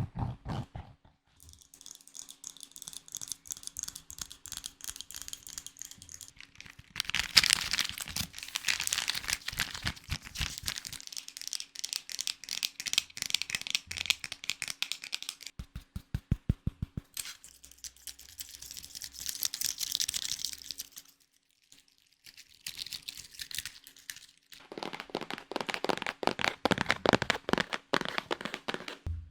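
A sequence of close-up ASMR trigger sounds that changes every few seconds: dense crinkling and crackling textures, with a short stretch of fast, low tapping about halfway through.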